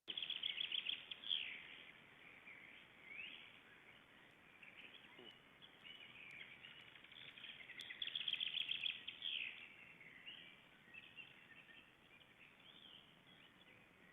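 Rapid trains of high, pulsed squeaks, each ending in a falling whistle, at a nest with a brooding bird and her chicks: one in the first second and a half and another about eight seconds in, with fainter chirps between. Whether it is the brooding parent snoring or the chicks whistling and snorting under her wings is uncertain.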